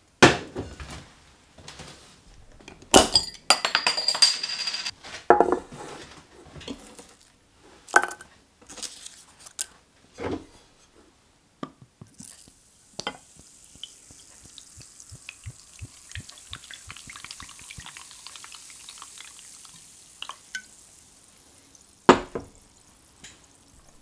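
Knocks and clatter of a small steel pan being handled in the first half. About halfway through, cider is poured into the pan and fizzes with a steady high hiss and a patter of popping bubbles. One sharp knock comes near the end.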